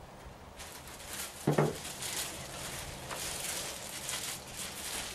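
Thin clear plastic bag crinkling and rustling as it is shaken out and opened up by hand, with one brief louder sound about one and a half seconds in.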